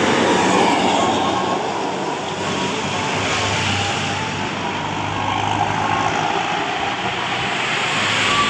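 A bus passing close by: steady engine hum under loud road and tyre noise.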